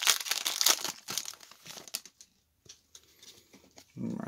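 Foil wrapper of a trading-card pack crinkling and tearing as it is ripped open, loudest in the first second and a half, then quieter rustling.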